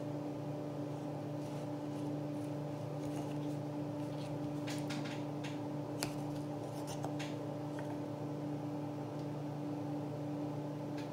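Light clicks and taps of Labyrinth's cardboard maze tiles being shifted along the board and a plastic pawn being moved across it, a few separate clicks a second or so apart. A steady low hum runs underneath.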